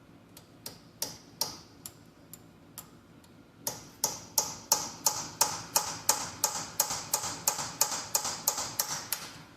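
Hammer striking a steel punch against a broken-off bolt in an engine block. A few light scattered taps give way, a little under four seconds in, to a steady run of harder ringing metal-on-metal blows at about three a second.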